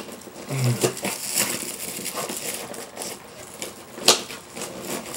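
Packaging scraping and rustling as a tightly wedged box is worked loose and pulled out, with a sharp knock about four seconds in.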